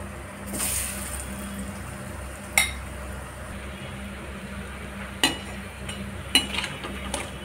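Batter-coated green chillies frying in oil in a kadhai: a swell of sizzling about half a second in as a chilli goes into the oil, over a low steady frying hiss. A metal slotted spoon knocks against the pan about five times in the second half, the loudest sounds.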